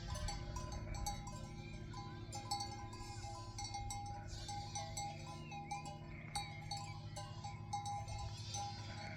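Sheep and lambs bleating now and then.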